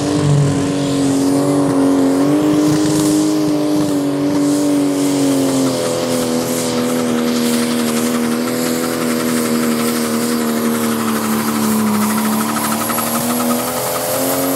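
Lille Bjørn pulling tractor's engine running flat out as it pulls the weight sled, a loud steady note that drops slightly in pitch about six seconds in and sags again shortly before the end, over the hiss of tyres throwing dirt.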